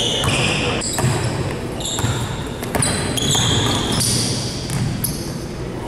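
Pickup basketball on a hardwood gym court: sneakers squeak in many short, high-pitched chirps while the ball bounces with a few sharp knocks, in a large echoing hall.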